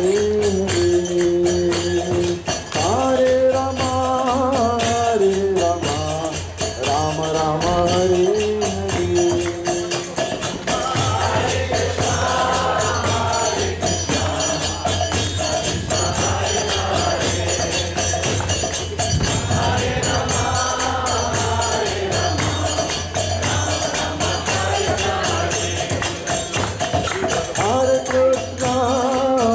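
Devotional kirtan sung call-and-response: a lead voice sings a line of held notes moving in steps, and a group answers from about a third of the way through, with the lead returning near the end. A steady jingling percussion rhythm runs under the singing.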